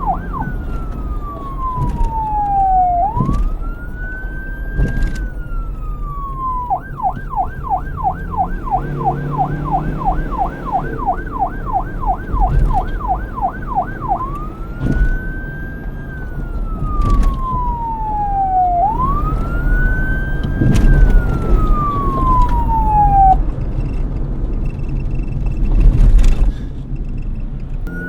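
Electronic police car siren switching between a slow wail that rises and falls and a fast yelp of about three cycles a second. It cuts out about 23 seconds in, leaving a low vehicle rumble and a few sharp knocks.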